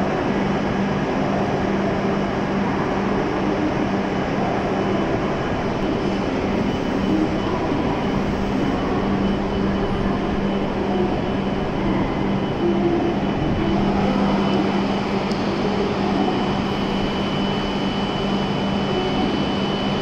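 Steady hum from a stationary E7 series Shinkansen train's on-board equipment, with a low tone and a thin high whine that becomes clearer near the end.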